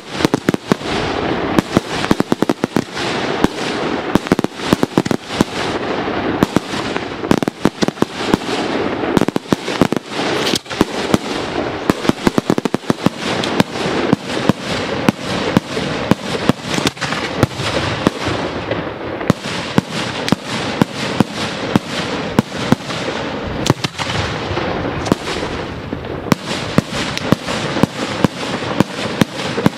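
Daytime aerial fireworks: a dense, unbroken run of sharp bangs from shells bursting overhead, several a second, with a continuous crackle and rumble between them.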